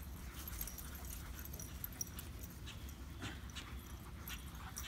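Two black German Shepherd puppies and a Dogo Argentino playing: faint, scattered short sounds of the dogs scuffling and chasing, over a low steady rumble.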